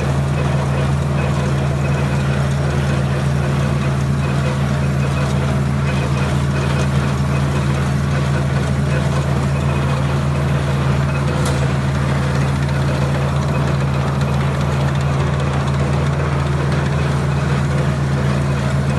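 John Deere 4020 tractor engine running steadily at working speed while its PTO drives a hay baler, heard from the tractor seat as an even, unbroken drone.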